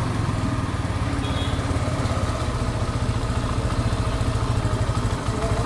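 TVS Apache RTR 150 2V's single-cylinder engine idling steadily with an even beat after an engine rebuild with new clutch plates and a refitted crankshaft. The engine is now running right.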